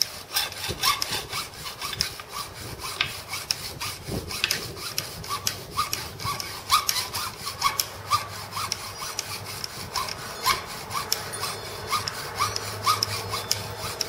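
Hacksaw cutting through a crimped copper cable lug by hand, the blade rasping back and forth at about two strokes a second. The cut runs through the middle of the crimp to show how solid the crimped copper strands are inside.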